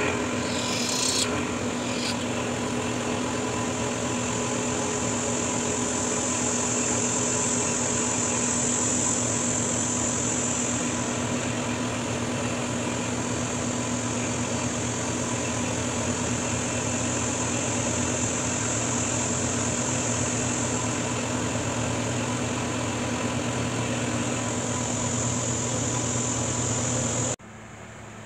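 Milling machine running steadily with its end mill cutting metal, a constant motor hum with a high hiss. It drops away suddenly near the end.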